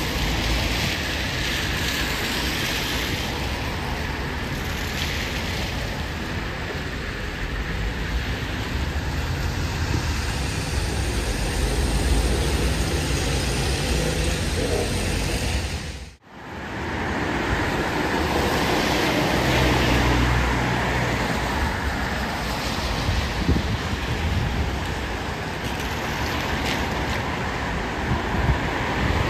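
Trolleybuses and other traffic passing on a rain-wet street: steady tyre noise on the wet road with a low motor hum. The sound cuts out for a moment about halfway through.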